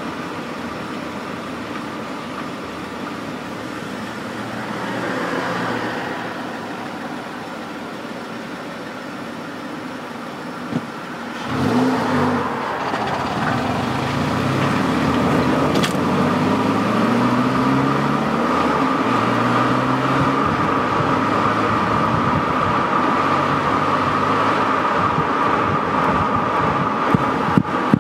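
Car exhaust heard close at the tailpipe: the engine runs at a steady low idle, then about eleven seconds in it grows louder as the car pulls away, its pitch rising again and again as it accelerates.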